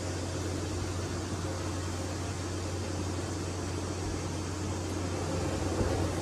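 Coin-operated laundromat washing machine running, a steady low hum under an even whooshing noise.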